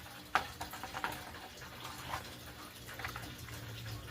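Simplex T-bar fire alarm pull stations being handled: one sharp mechanical click about a third of a second in, then a few fainter clicks, over a faint low hum.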